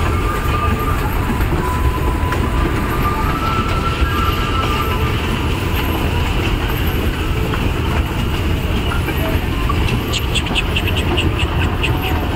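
Amusement-park toy train running, heard from aboard as a steady low rumble. Near the end comes a quick run of sharp clicks, about six a second, lasting a couple of seconds.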